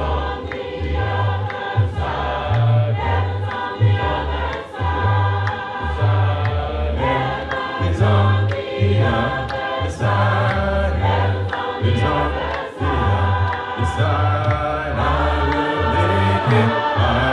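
Church congregation singing a gospel song together in parts, with a steady beat about once a second.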